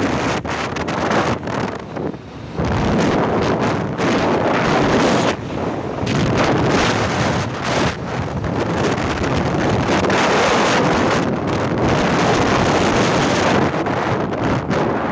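Wind buffeting the microphone of a moving vehicle, surging and easing, over a steady road rumble.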